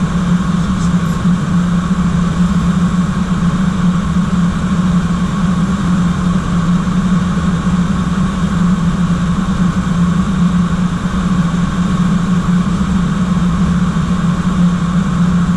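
Steady flight-deck noise of an airliner in flight: a constant low hum under an even rush of engine and air noise, unchanging throughout.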